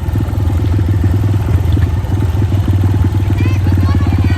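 Motor vehicle engine running close by at a steady speed, with a rapid, even beat.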